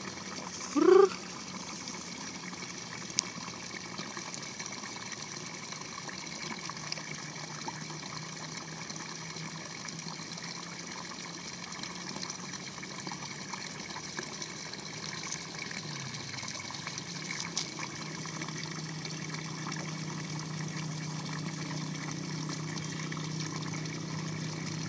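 Steady trickle of water in a rice-paddy ditch, with a low hum that grows louder in the second half. About a second in, a short rising sound stands out above it, and there is a single click a couple of seconds later.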